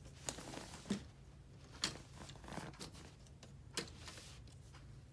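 Plastic marble-run pieces clicking and knocking as the assembled tower is handled and turned around, with four sharp clicks and light scuffs between them over a faint low hum.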